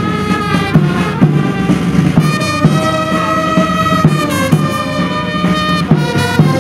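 Brass band playing, with held notes that change every second or so over a low pulsing bass line.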